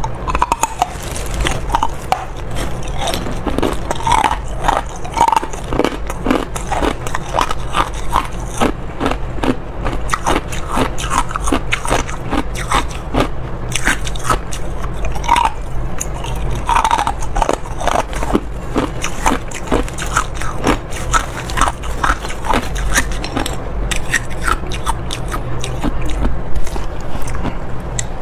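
Ice being bitten and chewed: a dense, irregular run of crisp crunches and cracks.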